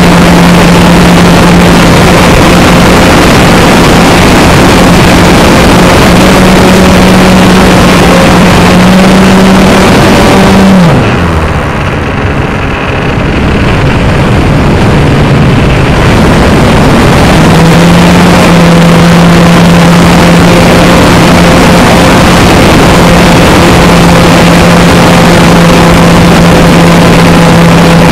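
Hangar 9 Ultra Stick RC plane's motor and propeller running at a steady pitch, heard over heavy wind rush on the wing-mounted camera. About ten seconds in, the motor winds down and several seconds of mostly wind follow. Then the motor comes back up to a steady pitch.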